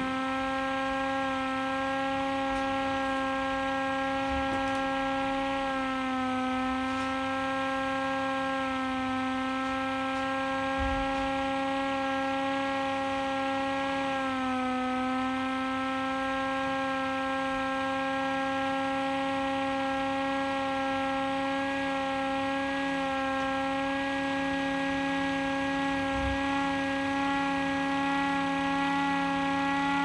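Small red 12-volt motor siren sounding a steady wail. Its pitch dips slightly twice and creeps up a little near the end.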